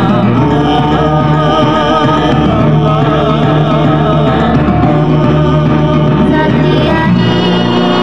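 Loud music with a singer's wavering, ornamented voice over a steady bass line.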